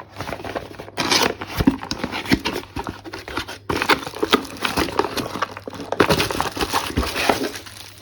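Plastic packaging crinkling and rustling as parts are unwrapped by hand, with a few light knocks as items are handled.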